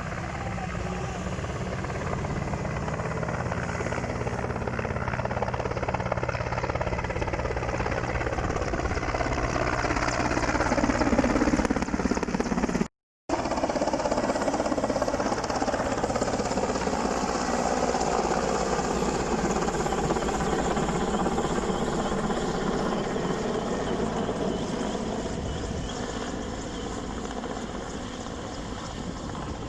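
Helicopter rotor and engine running steadily, growing louder over the first dozen seconds. The sound drops out for a moment about thirteen seconds in, then returns as a dense steady rush that slowly fades.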